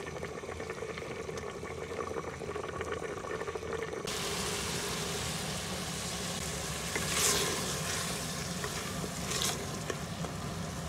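Minced mutton and green peppers simmering in liquid in a pressure cooker. After a cut about four seconds in, the drying mince sizzles as a wooden spoon stirs it around the metal pot, with two brief louder scrapes.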